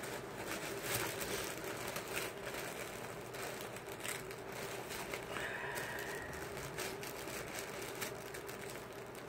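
A box being carefully worked open by hand: faint, irregular small clicks and scrapes of the packaging, over a faint steady hum.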